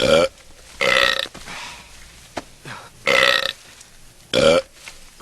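A person burping loudly, four separate burps each lasting under half a second.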